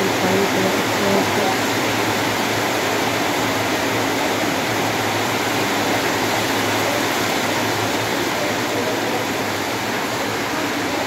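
Heavy rain falling steadily: a dense, even hiss of rain on the yard and roofing, with a faint low hum underneath.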